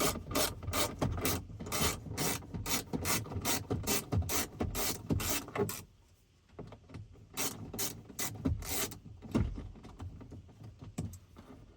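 Hand ratchet clicking in quick runs, about five clicks a second, as fasteners are backed out of a truck door. There is a short pause about six seconds in, then another run and a few scattered clicks.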